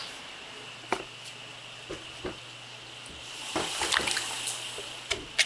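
Water splashing into a plastic basin of peeled sweet potatoes, building to a louder splashing for a couple of seconds in the second half, after a few light knocks.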